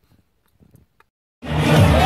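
Near silence, then about a second and a half in, a sudden cut to a loud party: music playing over a crowd's chatter.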